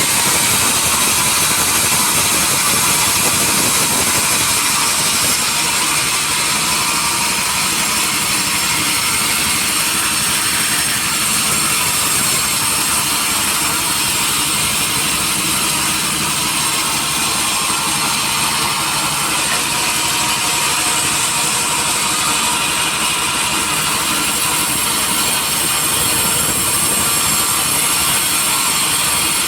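Sawmill machinery running steadily without a break, a loud even mechanical noise with a strong high hiss.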